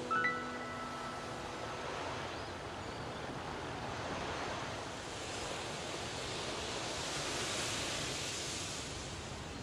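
Ocean surf washing in, swelling and easing in slow waves. A couple of last high musical notes ring and fade right at the start.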